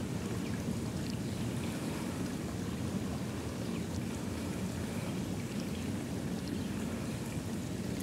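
Steady outdoor background noise, an even low rush with no distinct events, and a few faint ticks.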